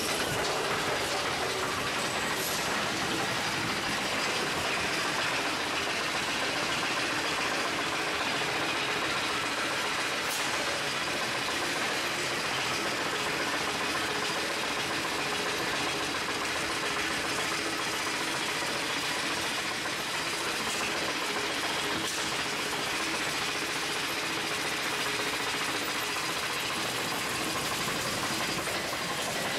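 Chain lift of a spinning wild mouse steel roller coaster hauling the car up the lift hill: the lift chain rattles steadily under the car.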